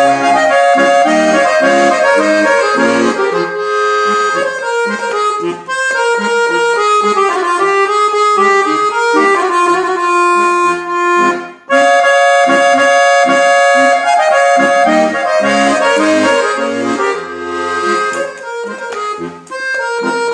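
Dallapé chromatic button accordion played solo: a quick melody on the treble buttons over a rhythmic bass-and-chord accompaniment. The playing stops for a moment a little past halfway, then goes on, growing quieter over the last few seconds.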